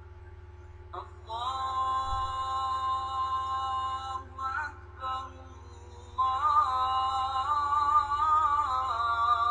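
Outro music led by a singing voice: a long held note from about a second in, two short notes, then a louder wavering melodic line from about six seconds in. A steady low hum runs underneath.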